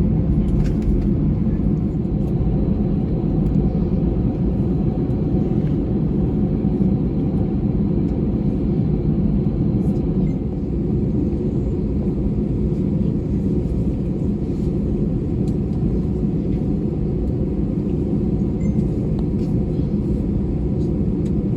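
Steady low rumble of an Airbus A321-200 airliner's engines and airflow, heard from inside the passenger cabin.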